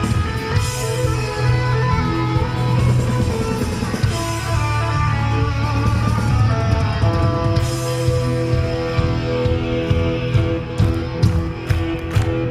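Live hard rock band playing loud. An electric guitar from a Flying V carries the lead with long held and bending notes over steady bass and drums, and the drum and cymbal hits come through more sharply near the end.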